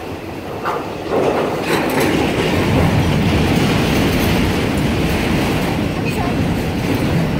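CSX autorack freight cars rolling past close by: a steady rumble of steel wheels on the rails with occasional clicks. It grows louder about a second in.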